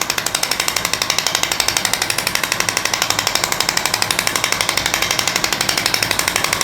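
Radial shockwave therapy device firing a rapid, even train of clicking pulses into a tender wrist at a low setting.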